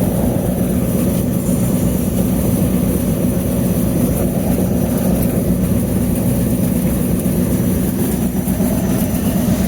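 Gravity separator machine running steadily while sorting stones, glass and impurities out of sawdust: a loud, even low hum with no breaks.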